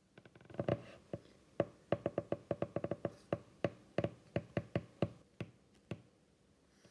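Trading cards being handled and set down: a quick, uneven run of light clicks and taps, several a second, thinning out near the end.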